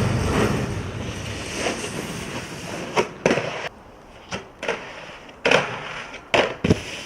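Snowboard sliding and scraping, loud at first and fading out over the first second or so, followed by a handful of sharp knocks and clacks.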